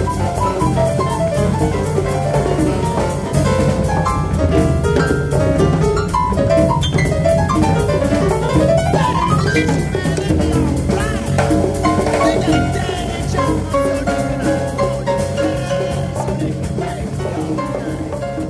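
Live jazz big band playing an afrobeat groove, with drum kit and piano. A sliding note rises in pitch about eight seconds in.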